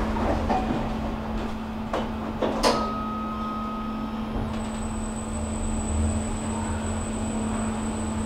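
Otis elevator: a few clunks, the loudest about two and a half seconds in, as the doors close, and a brief tone a moment later. Then the car travels down with a steady hum and a thin high-pitched whine.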